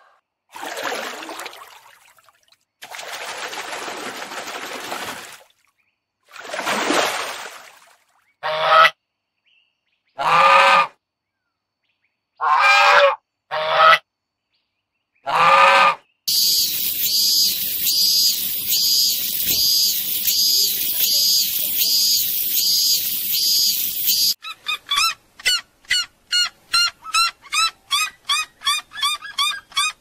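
A run of separate animal recordings. The loudest are domestic Chinese geese honking in short loud bouts through the middle, followed by a high, evenly repeating chirring, and near the end a fast series of sharp yelping notes from red-legged seriemas.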